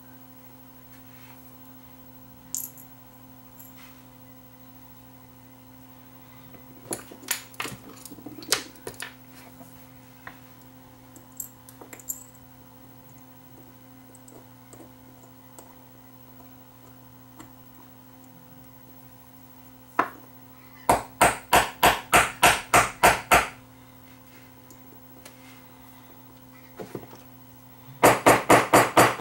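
Light metal taps as a seized motor sleeve bearing is tapped back into its housing on a small DC capstan motor with a hand tool: scattered clicks at first, then two quick runs of taps, about five a second, the second starting near the end.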